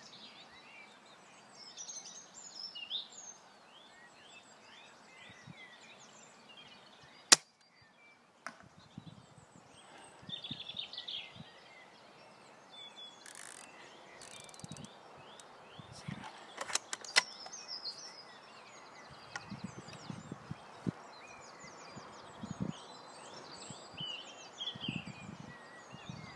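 Novritsch SSG24 spring-powered airsoft sniper rifle fired once: a single sharp crack about seven seconds in, the loudest sound. A few sharp clicks of the rifle being handled come a little past halfway. Birds sing throughout.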